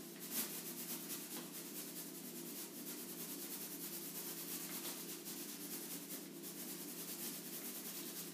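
Rubber balloon being rubbed quickly back and forth against hair, a steady rapid scratchy rubbing, to charge it with static electricity.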